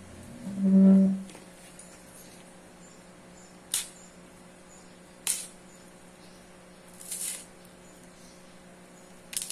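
Fresh taro (gabi) leaf stalks being snapped and peeled by hand, four crisp snaps a second or two apart. About a second in, a short loud humming tone, the loudest sound here.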